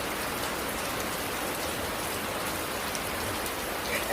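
Steady rain falling, an even downpour hiss with no let-up.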